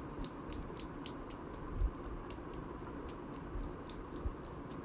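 Faint, irregular light clicks, about three a second, with a soft low thump about two seconds in.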